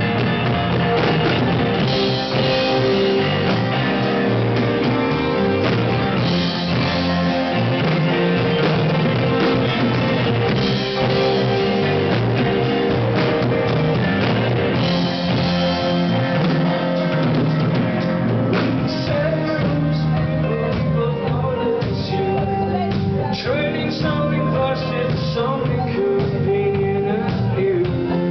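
Live rock band playing a song: guitars, drum kit and singing, loud and continuous.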